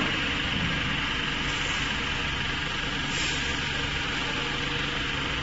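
Vehicle engine idling steadily, a constant low hum under a hiss.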